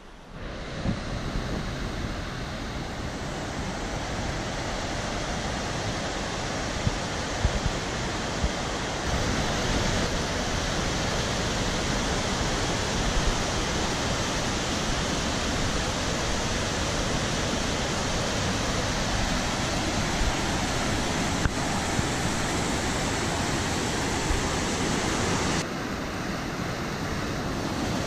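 Glacier-fed mountain river rushing over boulders as white water: a steady, loud rush of water that steps up a little about nine seconds in and dips briefly near the end.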